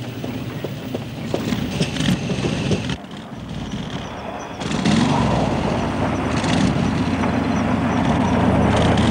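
Pontiac Firebird Trans Am's engine running as the car drives, first heard more muted, then after a cut a few seconds in louder and closer, its note rising and falling as the car comes along a dirt track.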